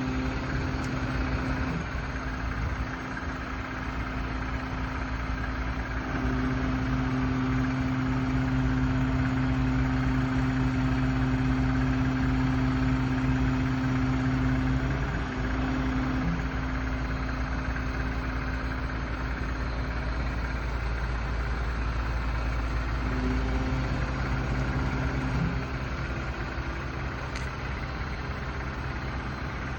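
Engine idling steadily, with a low droning hum that comes in for several seconds and again briefly later.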